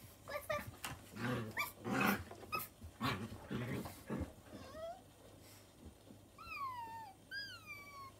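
Puppy-like yips and short growls, then two high, falling whines near the end.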